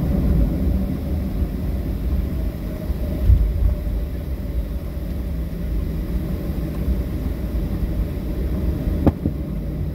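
Cabin noise of a Boeing 737-700 taxiing: a steady low rumble from the CFM56 engines at taxi power and the rolling landing gear. A dull thump comes about three seconds in and a sharper knock near the end.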